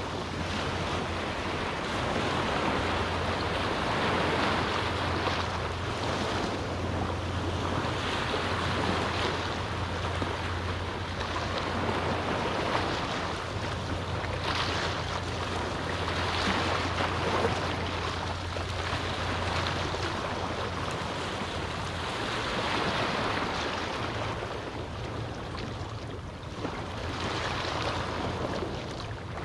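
Small waves from a calm sea washing onto a beach; the wash swells and eases every few seconds. A steady low hum runs underneath and drops away about two-thirds of the way through.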